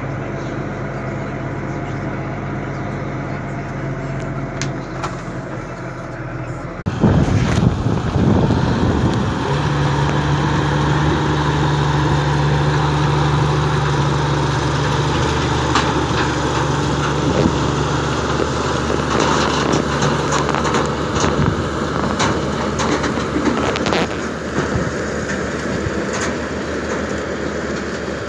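Tractor engine running steadily while it pulls a Grimme SE 260 potato harvester. About seven seconds in the sound turns suddenly louder and noisier: the engine under load, mixed with the harvester's clatter of soil and potatoes on its sieving webs, with scattered clicks and rattles.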